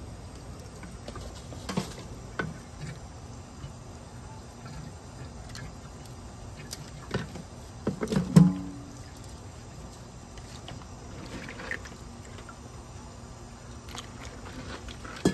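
Kitchen faucet running steadily into a stainless steel sink while blue crabs are rinsed and handled under the stream, with occasional knocks and clinks against the metal; the loudest is a short clatter about eight seconds in.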